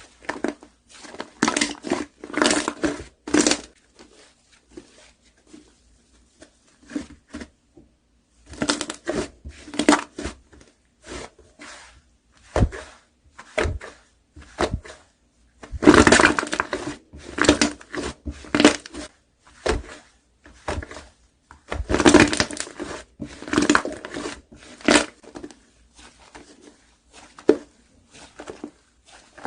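Slime being squished and pressed, giving crackling, popping clicks in irregular bouts with short pauses between them.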